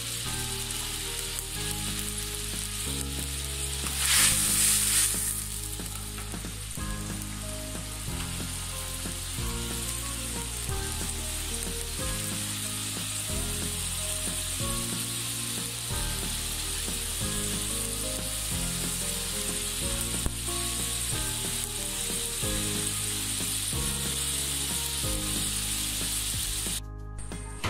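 Chopped onion and garlic paste frying in oil with a little water in a wok, sizzling and bubbling steadily as the masala is browned. There is a louder burst of sizzling about four seconds in, and the sizzling cuts off near the end.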